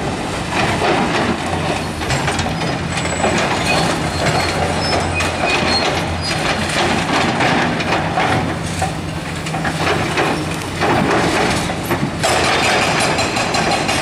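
Excavators demolishing a concrete building: diesel engines running steadily under repeated crunching and clattering of broken concrete and rubble. About twelve seconds in, a rapid, even hammering starts from a hydraulic breaker on an excavator arm.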